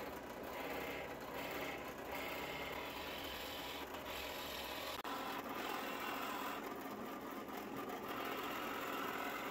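Drill press running, its 3/4-inch bit boring a hole down the center of a 1.5-inch wooden dowel: a steady motor hum with the bit cutting wood, throwing chips.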